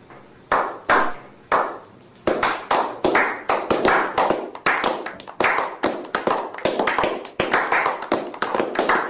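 A group of people clapping, slow single claps about a second apart that quicken after about two seconds into brisk, continuous applause.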